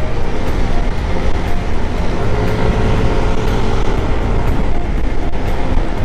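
Yamaha scooter being ridden at road speed: steady engine and road noise under a heavy low wind rumble on the microphone.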